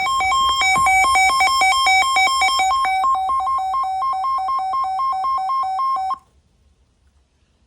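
Electronic alert tone: rapid beeps switching back and forth between two pitches, like a ringtone, which cut off suddenly about six seconds in.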